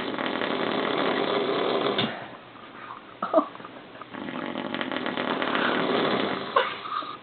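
A sleeping person snoring: two long, fluttering, rattling snores of about two seconds each, the second starting about four seconds in, with a brief sharp sound between them.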